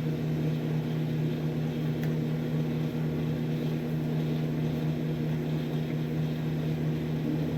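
Microwave oven running, a steady low electrical hum from its magnetron transformer while it heats.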